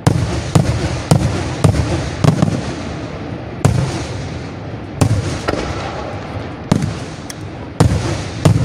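Aerial firework shells bursting in a display: about a dozen sharp bangs at uneven intervals, several close together in the first two seconds, each trailed by a rumbling echo.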